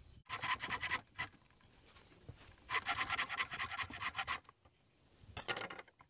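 Hand pruning saw cutting across a green bamboo pole held in a vise: quick back-and-forth rasping strokes in three bursts, the longest in the middle.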